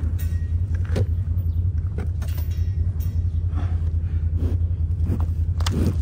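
Feed poured from a plastic bucket and pushed by hand into a bunk of hay and silage, making scattered rustles and crackles, over a steady low rumble.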